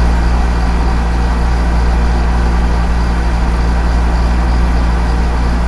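A steady low mechanical hum that keeps an even pitch throughout, with no speech.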